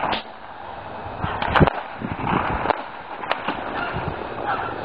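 Footsteps scuffing on gritty asphalt and handling noise, with a few sharp clicks. The bottle rocket in its glass bottle does not launch.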